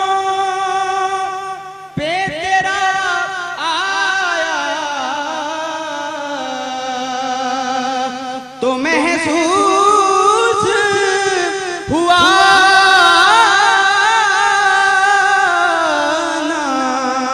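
A man singing an Urdu naat, a devotional poem in praise of the Prophet, solo into a microphone, in long held, wavering phrases with melismatic ornaments. New phrases begin about two, nine and twelve seconds in.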